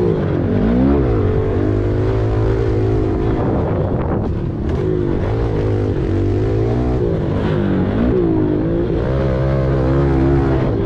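Pit bike engine heard from on board while riding a dirt jump line, revving up and down with the throttle, with a brief let-off about four seconds in.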